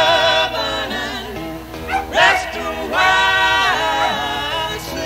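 Song on the soundtrack: singing in long held notes that bend and slide between pitches, with no steady beat.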